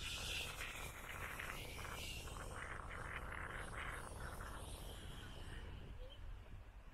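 Small waves breaking and washing up a sandy beach, over a steady low rumble.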